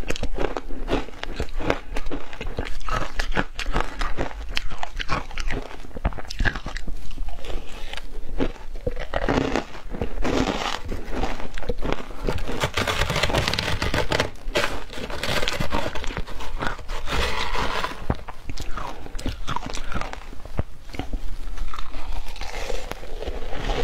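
Crunching and chewing of matcha-dusted shaved ice, bitten and chewed close to a clip-on microphone. The crunches are dense and irregular, with the busiest stretches about halfway through.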